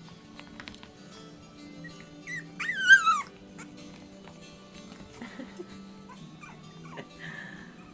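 A French Bulldog puppy gives one wavering, high-pitched whining cry about three seconds in, with a few faint squeaks later, over steady background music.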